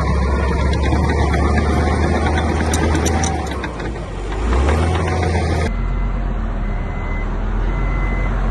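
Heavy diesel construction machinery engine running. About two-thirds of the way through, the sound changes abruptly and a reversing alarm beeps in a steady run.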